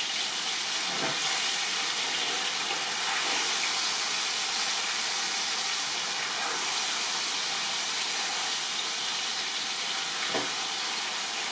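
Marinated chicken tikka pieces sizzling steadily in hot oil in a large pan, with a light knock about a second in and another near the end.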